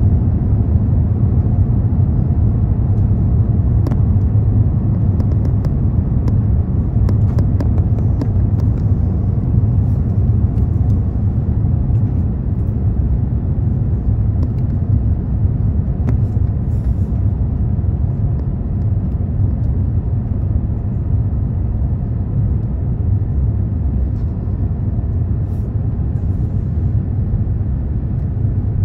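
Steady low rumble of an airliner's engines and rushing air heard inside the passenger cabin, on approach with flaps extended and landing gear lowered. A few faint ticks between about four and ten seconds in.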